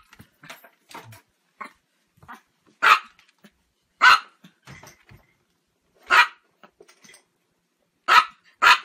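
Chihuahua barking: five sharp, high-pitched barks a second or two apart, the last two close together near the end, with fainter yaps in between.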